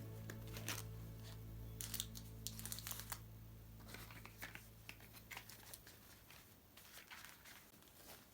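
Paper crinkling and tearing in short irregular rustles, as when handling wrapping or packaging, over soft background music that fades out about halfway through.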